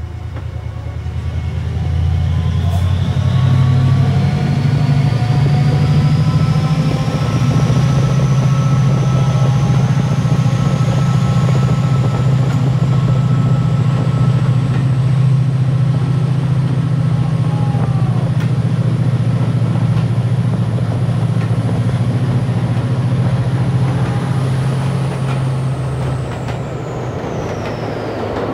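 Class 68 diesel locomotive's Caterpillar V16 engine under full power, loud and heavy, with a turbocharger whistle that climbs slowly in pitch for about twenty seconds and then drops away near the end as the power eases. Heard from the train inside a tunnel.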